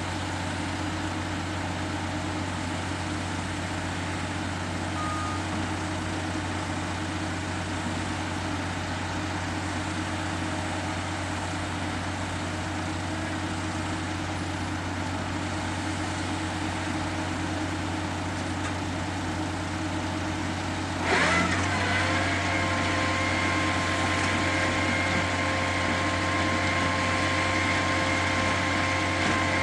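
Diesel engine of a crawler-mounted rotary drilling rig running steadily. About two-thirds of the way through it revs up sharply and holds at a higher pitch, with a steady whine over the engine.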